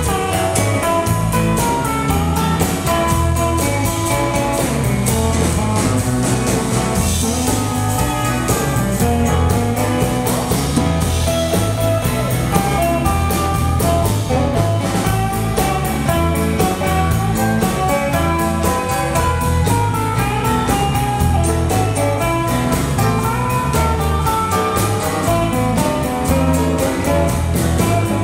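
Live blues-rock band playing: an electric guitar takes the lead over bass guitar and drum kit.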